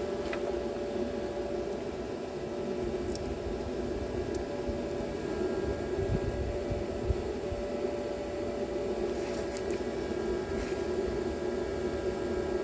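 Steady electrical hum of a MIG welder's cooling fan running, with a constant mid-pitched tone and no changes.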